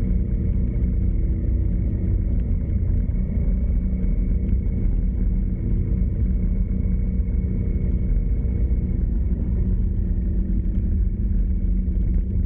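Motor vehicle on the move: steady low road and engine rumble with a constant engine hum, its pitch shifting slightly.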